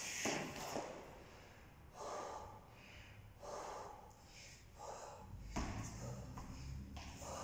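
A man breathing hard from exertion mid-workout, about six heavy, audible breaths a second or so apart.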